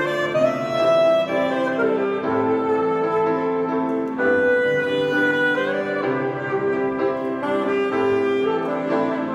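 Saxophone playing a hymn melody in long held notes, accompanied by chords on a grand piano.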